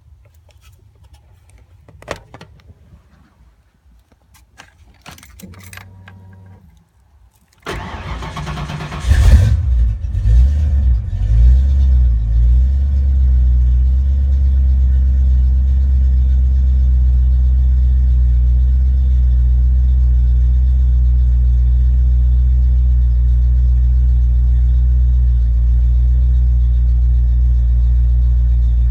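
Ford Mustang 5.0 V8 being started: a few clicks as the key is turned on and a brief hum of the electric fuel pump priming, then about eight seconds in the starter cranks, the engine catches and flares up, and settles into a steady fast idle on the rebuilt A9L computer.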